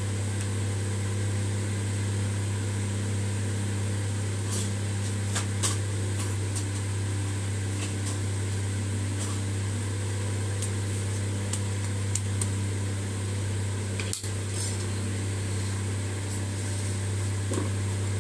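Cumin seeds frying in hot oil in an iron kadhai, giving scattered faint crackles, over a loud steady low hum.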